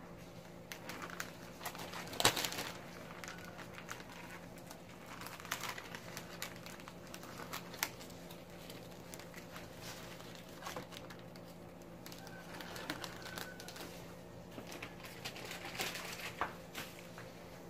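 Crumpled paper crinkling and crackling in irregular bursts as it is pressed and dabbed onto the wet spray-painted surface, with one louder crackle about 2 seconds in.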